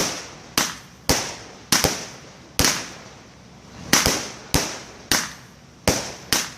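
Consumer fireworks going off in a string of about eleven sharp bangs at uneven intervals, each followed by a short echoing tail, with a longer pause near the middle.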